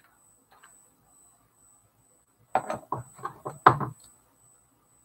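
Fingers handling wires close to the microphone: a quick run of rubs and taps about two and a half seconds in, lasting under two seconds.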